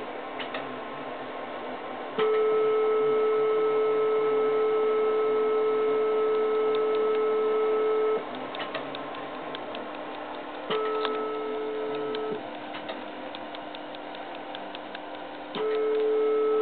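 Steady electronic beep tone, heard as a transceiver's CW sidetone while the carrier is keyed into a GU43 tube linear amplifier under test. It is keyed down three times: about six seconds long, then under two seconds, then about a second near the end. Light clicks and a constant low hum lie under it.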